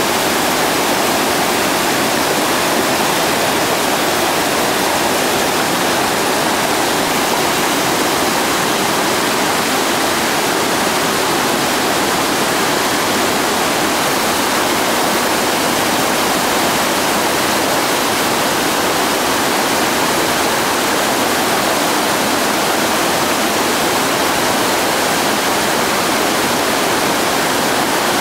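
Whitewater rapids rushing: a loud, steady, even noise of churning water that does not let up.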